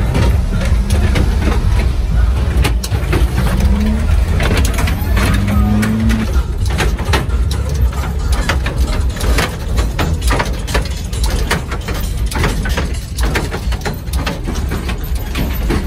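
Engines of lowered mini trucks rumbling as the trucks roll slowly past one after another, with crowd chatter.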